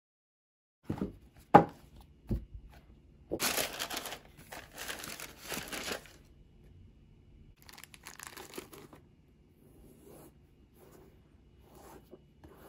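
Cardboard shoebox being opened: three dull knocks as the lid is handled, then tissue paper crinkling as a sneaker is lifted out, with fainter rustles later.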